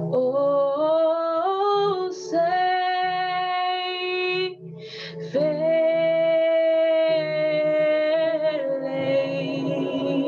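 A woman singing a slow worship melody, her voice sliding upward over the first couple of seconds and holding one long note in the middle, with short breaks between phrases. A keyboard plays sustained low chords beneath her.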